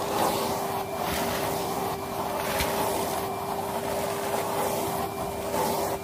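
Numatic Hetty HET 200A vacuum cleaner running with a steady motor whine, its floor tool sucking small bits of debris off a carpet. The rush of air rises and falls about once a second as the tool sweeps, with one sharp click about two and a half seconds in.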